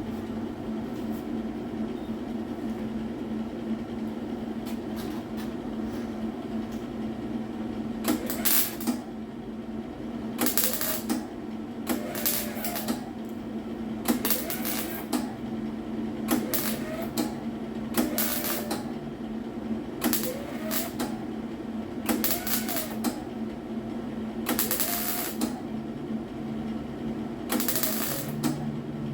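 Short bursts of welding on a car's steel quarter panel, a series of tack or stitch welds: each crackly burst lasts about half a second to a second and comes every second or two, starting about a third of the way in, over a steady hum.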